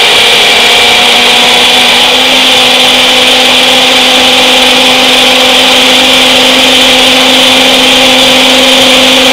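Ninja Auto-iQ BL642 blender running steadily and very loudly on its blend programme, its single-serve cup blending fruit, oats and milk; the motor's hum steps slightly higher about two seconds in and then holds.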